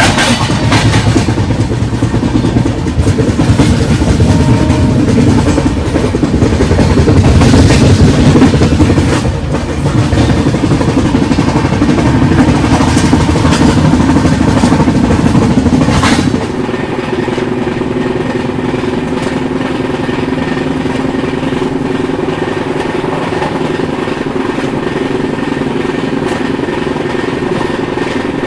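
Express passenger train running along the track, heard at an open coach door. Wheels on rail make a loud, rough running noise that eases to a quieter, steadier rumble with a low hum a little over halfway through.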